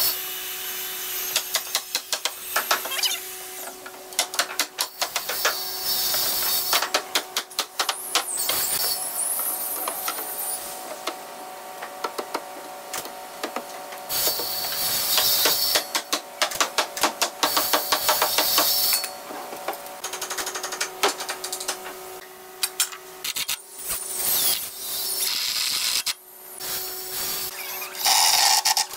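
Woodworking tool noise: many sharp knocks and clicks, with several bursts of hiss a second or two long, over a steady faint hum.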